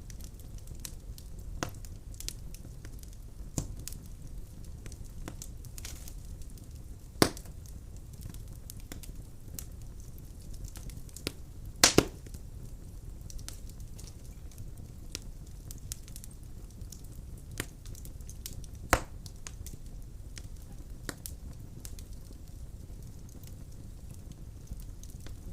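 Firewood burning in a fireplace: a steady low rumble of flames with scattered crackles and sharp pops, the loudest a double pop about halfway through.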